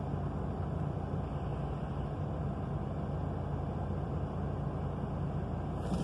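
Semi-truck diesel engine running steadily at low revs, heard from inside the cab.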